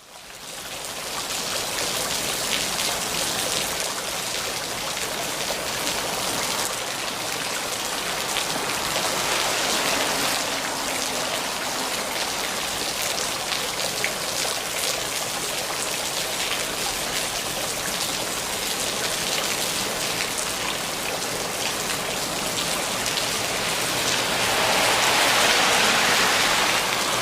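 Steady rainfall, a dense even hiss flecked with the ticks of individual drops hitting a surface. It fades in over the first second and grows heavier near the end.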